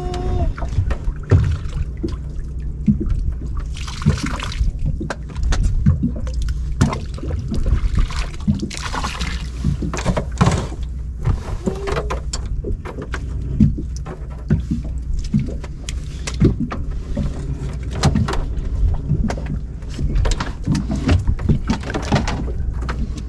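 Knocks and clatter on a small boat with water splashing as shell octopus traps are hauled up out of the sea, over a steady low hum.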